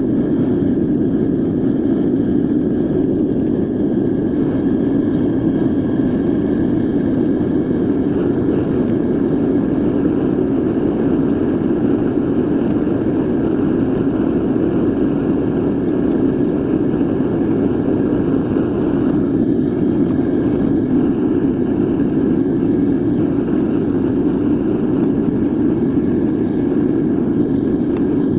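Metal-melting furnace burner running steadily, a constant deep rushing roar with no breaks or changes in pitch.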